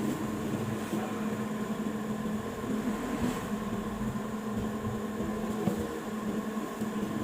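Steady mechanical hum, a low drone with a fainter higher tone above it, with a few light knocks, the sharpest a little over five seconds in.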